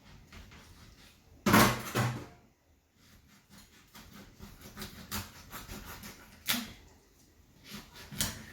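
Kitchen clatter while cooking: a loud double knock about a second and a half in, then scattered lighter knocks and clicks of pots and utensils being handled.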